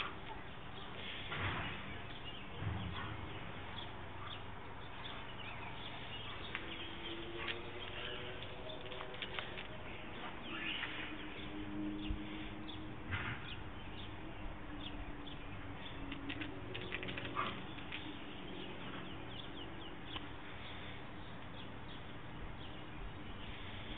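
Faint outdoor ambience: small birds chirping now and then over a low steady hum, with short faint ticks scattered throughout.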